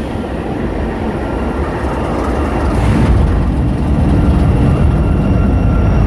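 Diesel freight locomotives and a loaded rock train passing close by, a deep rumble that grows louder and levels off about three seconds in.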